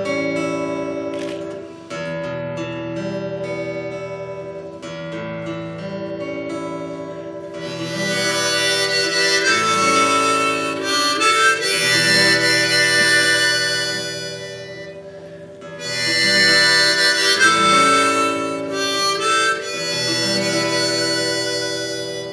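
Acoustic guitar picking a slow introduction, joined about a third of the way in by a harmonica playing the melody in two long phrases over the guitar.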